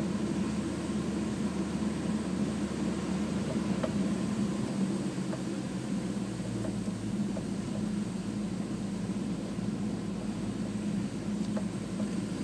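Steady running noise of a slow-moving car heard inside its cabin: a low engine hum with tyre and road noise, the lowest rumble shifting about five seconds in.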